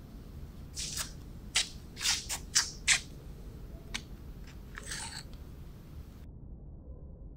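A handful of short scrapes and knocks from a hand sliding across a wooden floor and grabbing a revolver, with a light click about four seconds in.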